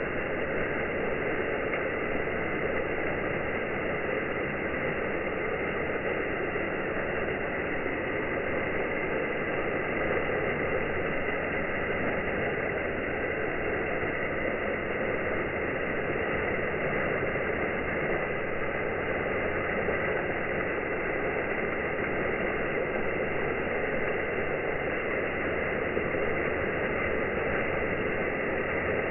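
Water from a pond waterfall pouring and splashing steadily into the pond.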